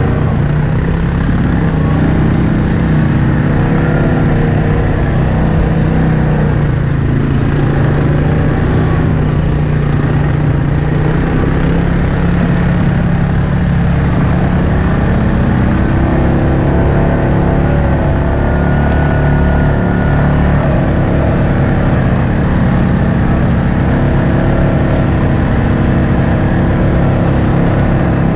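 ATV engine running steadily at low trail speed, its pitch wavering slightly with the throttle.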